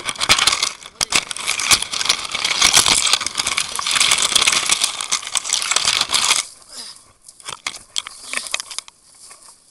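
Branches and dry twigs scraping and crackling against a body-worn camera as someone forces a way through thick scrub. After about six and a half seconds the noise eases to scattered snaps and rustles.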